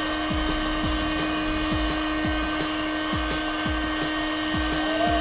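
Heat gun running with a steady whine while heat-shrinking tint film on a car's rear window, over background music with a steady kick-drum beat about twice a second.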